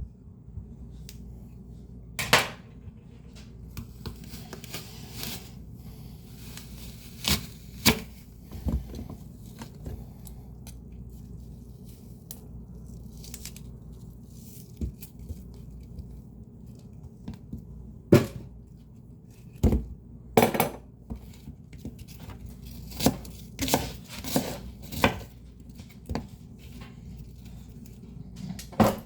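Electric fan humming steadily under scattered knocks, taps and rustles of leafy greens and kitchen utensils being handled and cut. The knocks come only now and then at first, then in a quicker run about three-quarters of the way through.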